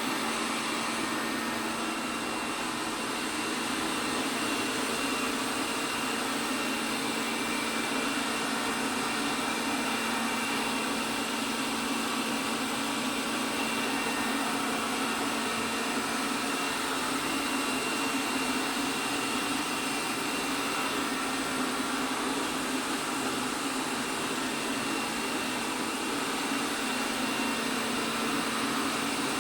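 ELARI SmartBot Lite SBT-002A robot vacuum running steadily while it cleans, its suction fan making an even whir with a few faint steady tones.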